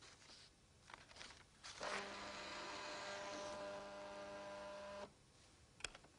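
Desktop fax machine running with a steady motor hum from about two seconds in until about five seconds, as it draws a sheet of paper through. A couple of light clicks near the end.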